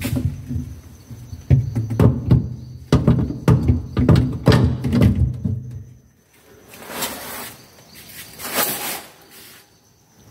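Background music: a steady low drone under quick irregular knocks that stop about six seconds in, followed by two soft rushing swells.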